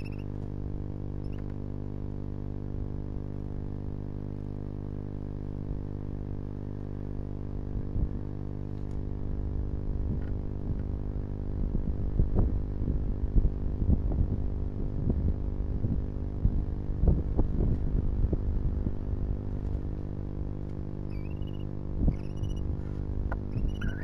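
Barn owls shuffling and preening on a bed of wood shavings: a run of soft scratching and rustling over a steady low hum, busiest in the middle, with a few short high squeaky chirps near the end.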